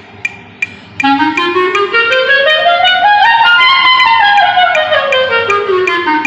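A wind instrument plays a scale, stepping up about two octaves and back down note by note. Faint regular ticks come before it.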